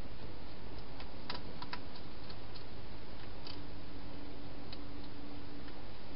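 Wild hedgehog eating inside a plastic feeding box: scattered sharp clicks of chewing, a couple close together, over a steady hiss.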